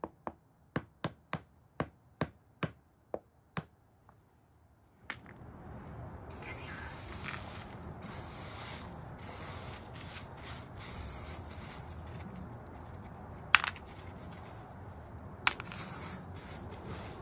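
A rock used as a hammer knocking on a wooden garden border, about three sharp knocks a second for the first three and a half seconds. After a short pause, a steady hiss takes over, with two louder sharp knocks near the end.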